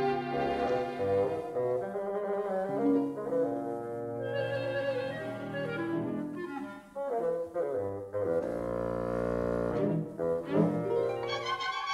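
Instrumental background music: slow, sustained melodic notes that change every second or so.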